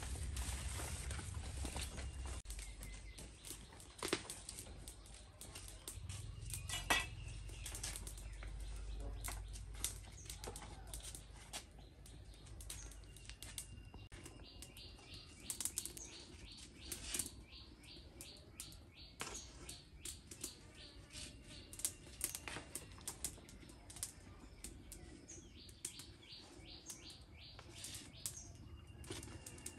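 Quiet rustling and flapping of a large fresh banana leaf as it is handled and waved over a wood fire to soften it, with scattered light clicks and knocks. Birds chirp in the background in fast repeated runs.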